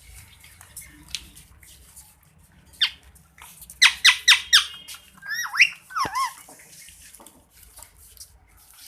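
Indian ringneck parrot calling. A single chirp, then a fast run of four loud harsh squawks, then a few whistled notes that bend up and down, over faint scratchy clicks.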